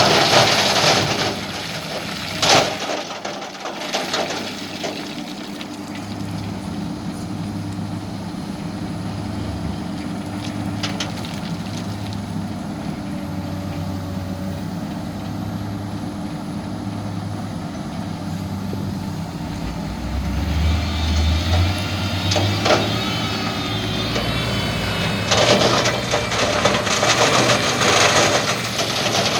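Kobelco excavator's diesel engine running under working load with a steady hum. It is broken by loud rushes of noise right at the start and again over the last few seconds, a sharp knock about two and a half seconds in, and a wavering high whine a little after the middle.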